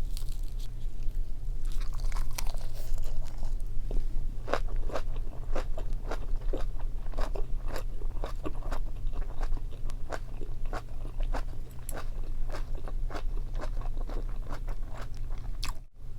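Close-miked chewing of kimchi, a steady run of crisp crunches about two a second, over a constant low hum.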